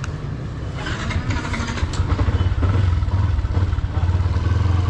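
Stage 2 tuned Yamaha Y15ZR's single-cylinder four-stroke engine running at low revs through its stock exhaust as the bike rolls along slowly, getting louder about two seconds in.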